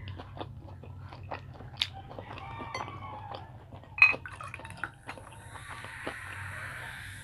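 Chewing with small wet clicks, then about four seconds in a sharp clink of a glass bottle against a drinking glass, and cola pouring into the glass with a steady fizzing hiss for the last two seconds.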